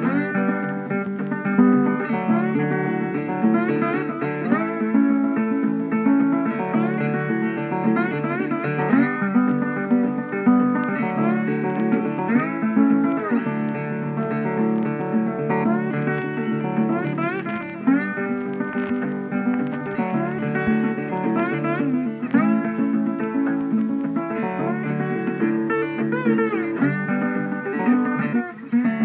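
Background music: a guitar playing a steady, continuous tune, with some notes sliding in pitch.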